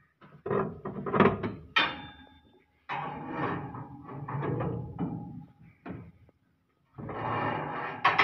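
Metal knocks and clanks, several in quick groups, some ringing briefly, from work on the steel threshing concave (basket) of a Swaraj combine harvester as it is fitted.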